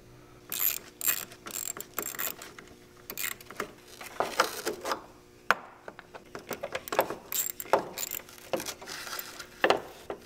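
Hand ratchet and socket clicking in short, irregular runs while unscrewing a radiator mounting bolt.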